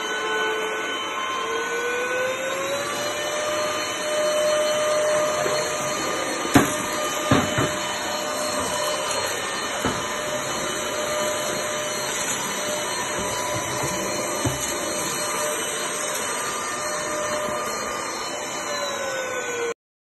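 Cordless, battery-powered stick vacuum cleaner running with its motorized floor brush on a tiled floor: a steady whine over a hiss. The whine rises slightly in pitch about two seconds in and drops just before the sound cuts off suddenly near the end. A few short knocks come along the way.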